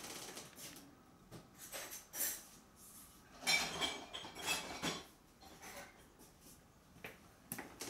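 Scattered light clinks of metal cutlery, a few separate strikes spread over several seconds: a teaspoon being fetched and handled.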